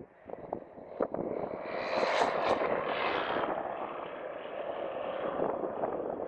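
Propeller-driven light sport aircraft with a Rotax engine at takeoff power, growing louder as it rolls in and lifts off. It is loudest and brightest as it passes close, about two to three seconds in, then holds steady as it climbs away.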